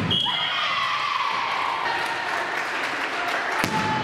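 Spectators clapping and cheering in a volleyball hall after a rally. There is a sharp hit right at the start and another about three and a half seconds in.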